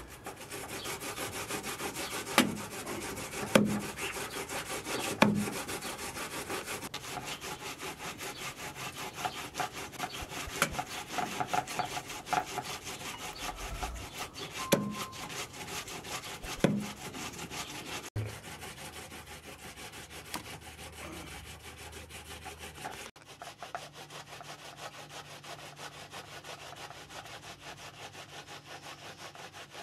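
Fast, steady scraping of a knife working fish on a wooden block and a hand grater rasping, broken by several sharp knocks of a cleaver striking the block, the loudest in the first few seconds.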